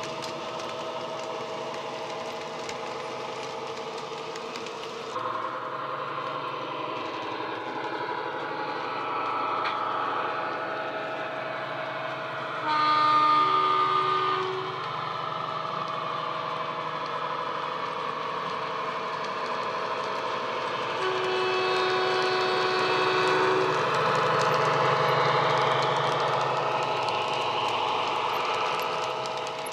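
Coastal DCC sound recording of a Class 70 diesel's GE PowerHaul V16 engine, played through the model locomotive's speaker: the engine runs steadily, with a horn blast about 13 seconds in and a longer horn note about 21 seconds in.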